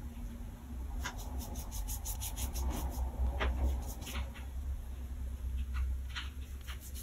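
Light scratching and scraping of a cat's paws on a tiled floor around a metal floor drain: a quick run of small scratches about a second in, then a few scattered scrapes.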